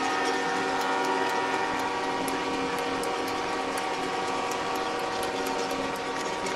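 Many truck air horns sounding together in one unbroken chord of overlapping steady tones.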